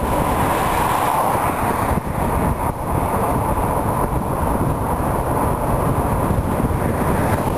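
Steady road and wind noise of a car driving along a paved highway.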